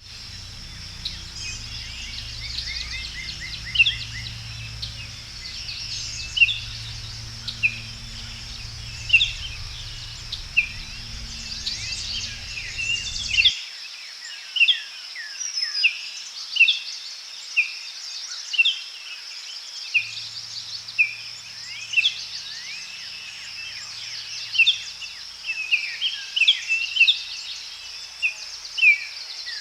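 Several songbirds chirping and calling in short, repeated downward notes over a steady high insect drone. A low rumble under them cuts off abruptly about halfway through.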